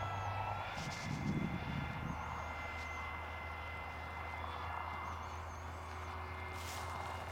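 Small propeller aeroplane's engine running in flight, a high whine holding a steady pitch.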